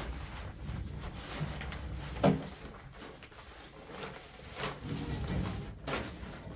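Scattered knocks and clicks of handling, with one sharp thump about two seconds in and another strong knock near the end.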